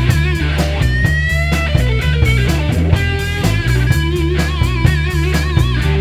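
Rock band playing: a lead guitar with wavering, bending notes over bass guitar and a drum kit keeping a steady beat.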